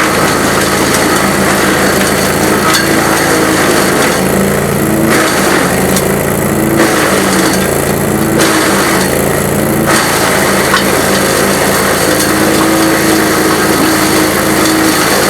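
GreenMech Arborist 130 wood chipper running under load as wood is fed through on dull blades. A steady engine hum runs under a rough, crunching chipping noise that eases off and comes back several times in the middle.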